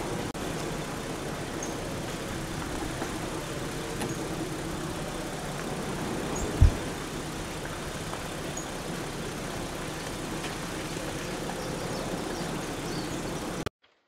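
Blocky a'a lava flow grinding forward against a car, a steady noise with faint high clinks scattered through it. One short low thump comes a little past halfway. The sound cuts off suddenly near the end.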